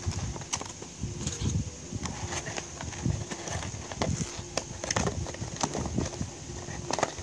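Irregular taps, knocks and rustles of hands handling a handmade paper and cardstock card close to the microphone.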